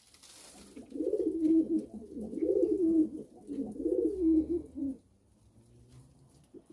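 Pigeon cooing: a low coo that rises and falls in about three swelling phrases, starting about a second in and stopping near the five-second mark.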